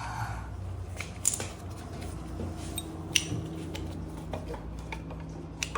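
Metal clinks and taps of hand tools and brake parts being handled while new front brake pads are fitted into a motorcycle caliper. Three sharper clinks stand out over several seconds, with lighter ticks between them, over a low steady hum.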